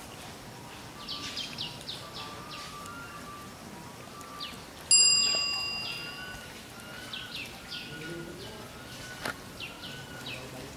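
Birds chirping in the background in short clusters of quick downward notes, with fainter warbling notes between. About five seconds in, a single bright bell-like chime rings out and fades over a second or so; it is the loudest sound and comes with a 'Like & Subscribe' on-screen graphic, so it is an added sound effect.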